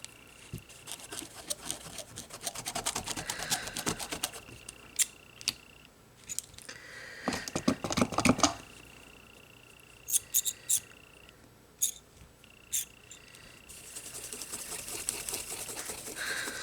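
Nail-stamping tools being worked by hand: a scraper card rasping across a metal stamping plate in quick scratchy strokes, with sharp clicks and taps from the plate, stamper and polish bottles. A faint steady high whine comes and goes behind it.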